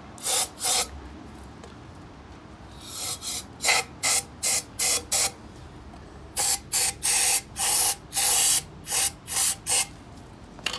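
Aerosol can of brake cleaner sprayed in a quick string of short bursts, three groups with brief pauses between, into a removed throttle body to flush carbon buildup out of its clogged EGR ports.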